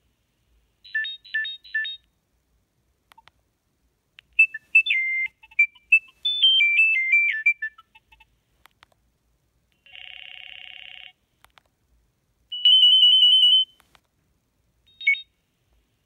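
Nokia 3510i ringtone previews playing one after another as the list is scrolled. First come a few quick beeps, then a short stepping melody, then a buzzy tone, a fast high trill and a brief blip, each short and separated by silence.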